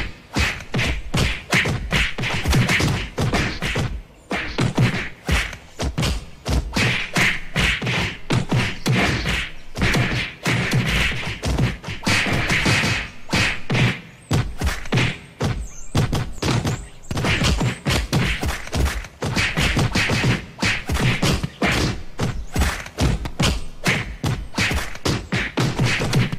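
Cartoon fight sound effects: a rapid, unbroken run of punch thuds and whacks, several a second, with a few brief pauses.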